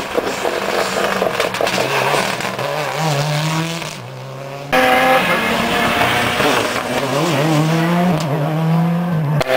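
Two rally cars passing one after the other at full speed, engines revving hard, with the pitch climbing and dropping as they change gear. There is a short break between the two about four seconds in.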